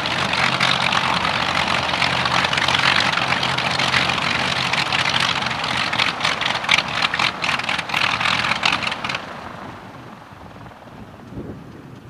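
The Bristol Freighter's two Bristol Hercules 14-cylinder sleeve-valve radial engines running with a steady hum. For the last few seconds of the run the engines crackle irregularly. About nine seconds in, the engine noise drops away to a much quieter hiss.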